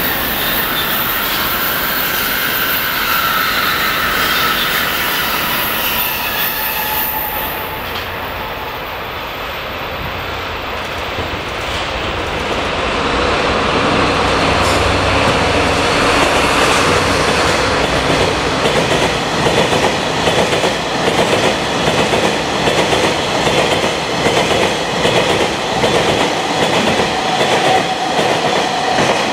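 DD51 diesel-hydraulic freight locomotive hauling a string of tank wagons past at close range. Wheels squeal in the first several seconds as it approaches. The locomotive's engines grow louder as it passes, about halfway through. From there on the tank wagons' wheels keep up a steady, rhythmic clickety-clack over the rail joints.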